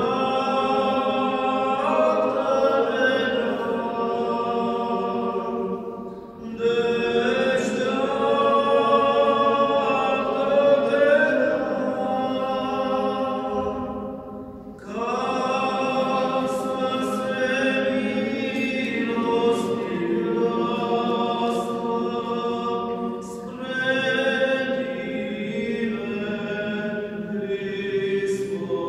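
Orthodox liturgical chant sung by clergy: long, slowly gliding melodic phrases, with short breaths between phrases about six and fourteen seconds in.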